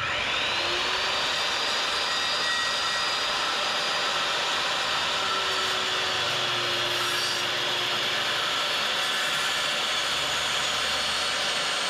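Circular saw spinning up with a rising whine, then running steadily as it cuts through the chicken coop's house-wrapped wooden wall.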